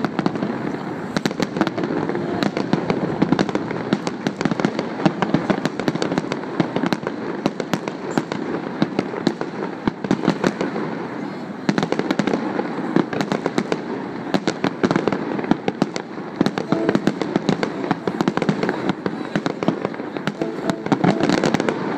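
Fireworks going off in rapid succession: a dense, continuous stream of bangs and crackles.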